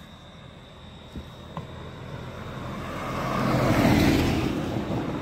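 A vehicle passing close by on the road. Its noise swells to a peak about four seconds in, then fades away.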